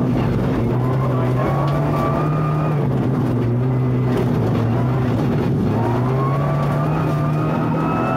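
Rally car engine heard from inside the cabin, driven hard: its pitch climbs, drops about three seconds in, then climbs again near the end, over steady road noise.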